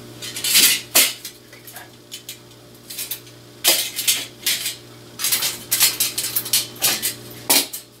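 Stainless steel pinwheels clinking and clattering as they are handled and set down on a workbench: a short burst about half a second in, another near the middle, and a busier run of clinks toward the end, over a steady low hum.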